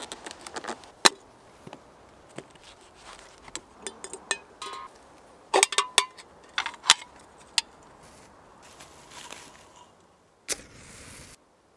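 A serrated knife scraping birch bark, then its point punching holes in a thin aluminium drink can. The sound is a series of sharp clicks and metallic pops, loudest in a quick cluster about halfway through. Near the end there is a short burst of rustling.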